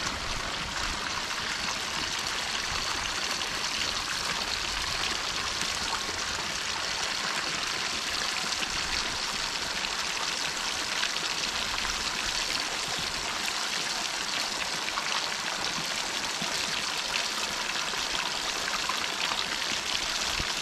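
Hot oil in a kadai sizzling steadily with fine crackling, the sound of deep-frying marinated chicken.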